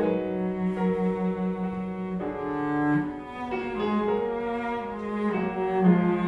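A string quartet and piano playing a slow, sustained passage, the cello holding long bowed notes under the higher strings, with the chords changing every second or so.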